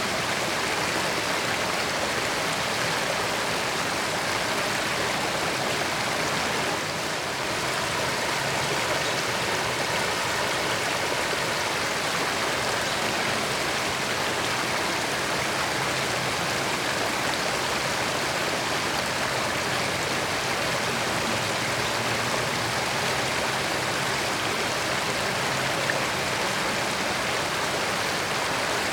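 Creek water flowing and babbling over rocks, a steady, even rush without pauses.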